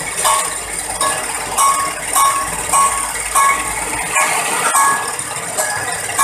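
Stainless steel coffee grinding machine running, with a sharp metallic clink repeating at an even rhythm, a little under twice a second, over its steady grinding noise.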